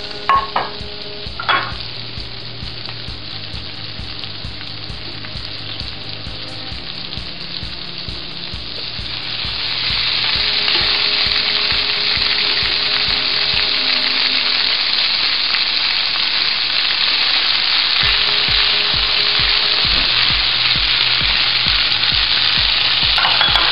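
Shrimp frying in oil in a skillet, with a steady sizzle and a couple of light knocks near the start. About nine seconds in, the sizzle turns much louder as drained pasta goes into the hot pan.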